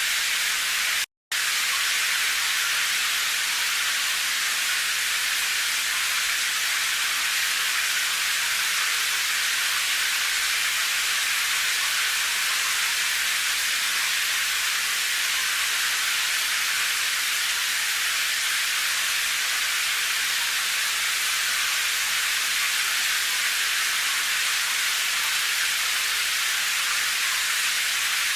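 Steady, even rain hiss, mostly high-pitched with little low rumble. It cuts out to silence for a split second about a second in.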